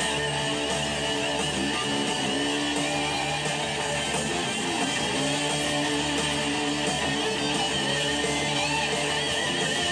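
Rock music with electric guitar prominent over bass guitar, with held, gliding guitar notes.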